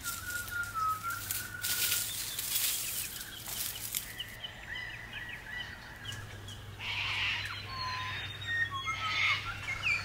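Birdsong from several birds: short whistled notes, chirps and gliding calls. A rustling crackle runs through the first four seconds, and two brief harsher sounds come about seven and nine seconds in.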